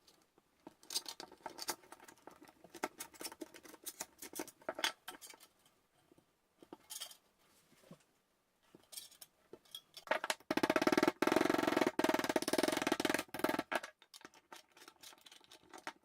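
Sheet metal being cut and handled: repeated short snips and clicks of metal shears, with metal clatter. About ten seconds in comes a loud, rapid buzzing from a power tool, lasting about three seconds, and then the snips and clicks resume.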